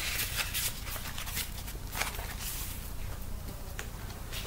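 Quiet room with faint soft rustling and a few small taps, the sound of cards or pages being handled.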